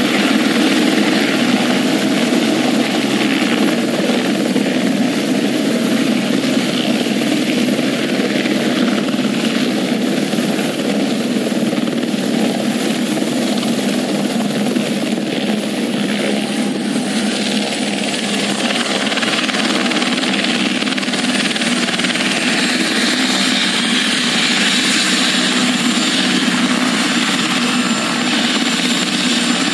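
Helicopter's rotor and turbine engine running loud and steady as it hovers and sets down on the pad. About halfway through, a high turbine whine steps slightly lower in pitch and then holds steady while it sits with its rotors turning.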